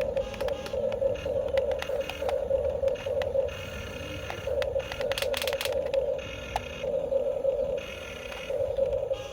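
Electric motors and gearboxes of a Huina RC construction toy whining in repeated bursts of about a second, with short pauses between as the controls are worked. Scattered clicks and scraping run through it, with a quick cluster of clicks about five seconds in.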